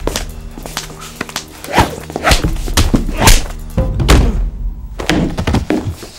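Dramatic background music with a low held drone, overlaid by several sharp thuds and knocks of re-created foley.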